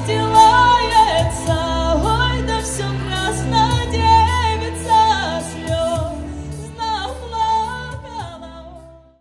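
A female voice singing a song over a backing track, holding long wavering notes over a steady bass and beat; the music fades out and stops just before the end.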